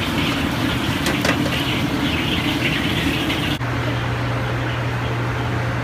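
Steady roar of a commercial kitchen's gas burners and exhaust around a stacked aluminium dumpling steamer. About three and a half seconds in, the sound cuts abruptly to a steadier low hum.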